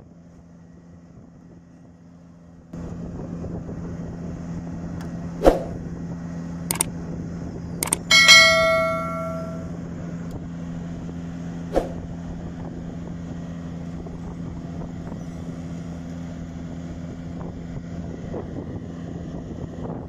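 Steady drone of the Vögele Super 1800-3 asphalt paver's diesel engine running, louder from about three seconds in. Over it, a subscribe-button sound effect: a few clicks and, about eight seconds in, a bell chime that rings out, with one more click near twelve seconds.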